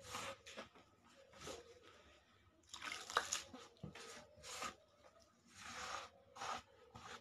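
A hand mixing flour and liquid into a shaggy dough in a large bowl: a string of soft rubbing, scraping swishes as the fingers rake through the flour against the bowl, the strongest about three seconds in.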